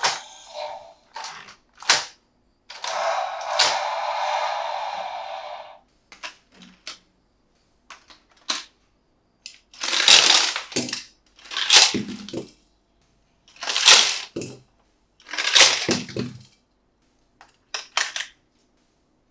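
Toy packaging being handled and opened: scattered clicks and taps, a sustained rustling stretch of a few seconds, then four short rustling or tearing bursts about two seconds apart.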